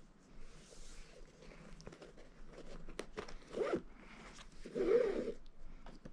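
Shoelaces being pulled through the eyelets of a basketball sneaker during relacing: a series of short rasping swishes. Two longer, louder pulls come about three and a half and five seconds in.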